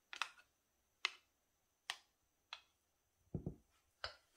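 A spoon tapping against a metal potato masher and a stainless steel bowl while scraping mashed banana off it: a string of short, sharp clicks about a second apart, with a duller knock about three and a half seconds in.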